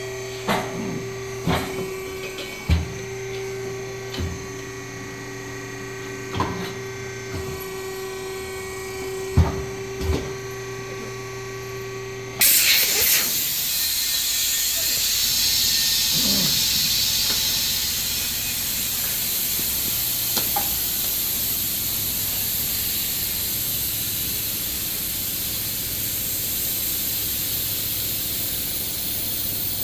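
A truck tire changer hums steadily while metal knocks and clanks sound from the tire work. About twelve seconds in, a loud, steady rush of compressed-air hiss starts suddenly and keeps going.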